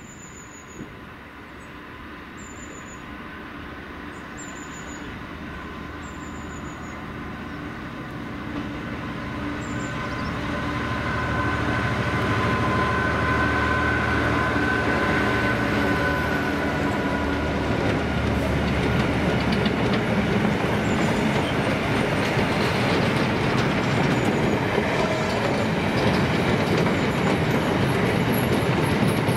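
DB Cargo Class 66 diesel locomotive's EMD two-stroke engine working as it approaches, growing steadily louder, then a long rake of empty open freight wagons clattering over the rails as they pass. A thin steady high squeal from the wheels on the curve runs through the middle.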